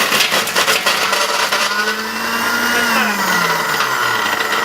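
Electric blender running at full speed, a loud steady whir; about three seconds in its motor pitch sinks over a second or so.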